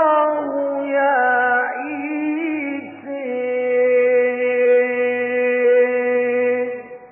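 Male Quran reciter's voice chanting in the ornate mujawwad style: a winding, ornamented phrase, then one long held note of about three and a half seconds that fades near the end.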